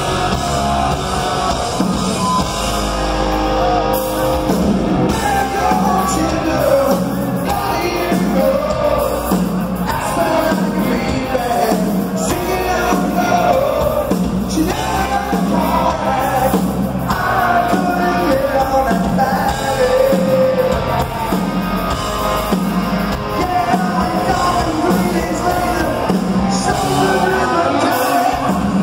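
Live heavy metal band playing: distorted electric guitar, drum kit with a steady beat, and a lead singer's voice on top, heard from the audience in a large hall.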